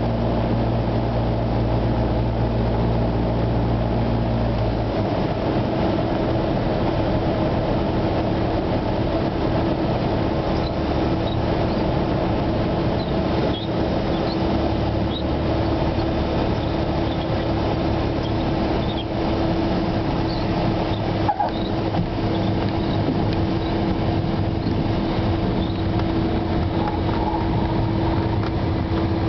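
Cessna 172SP's four-cylinder Lycoming engine and propeller, heard inside the cockpit during a landing. The low engine drone drops away about five seconds in and leaves a steadier hum, with a single knock about two-thirds of the way through.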